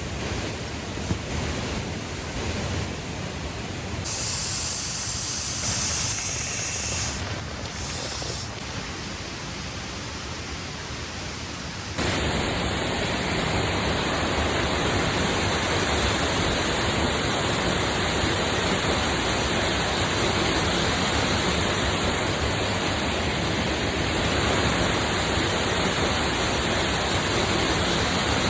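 Steady rushing water noise from rain and falling water, with no distinct events. It changes abruptly a few times and becomes louder and fuller about twelve seconds in, then holds steady.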